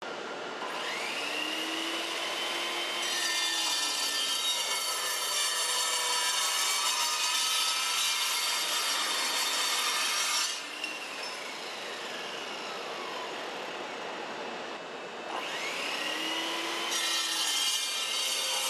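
Circular saw with a Metal Devil steel-cutting blade. Its motor spins up with a rising whine, then the blade cuts through steel bar for about seven seconds with a dense, hissing screech. It winds down with a falling whine, spins up again, and starts a second cut near the end.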